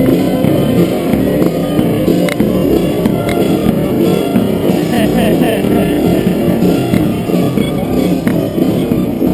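Loud music.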